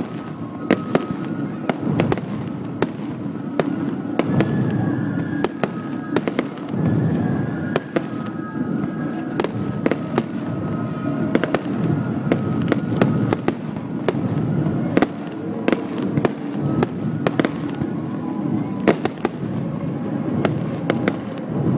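Aerial fireworks bursting overhead: an irregular string of sharp bangs and crackles over a low rumble, picked up on a phone microphone.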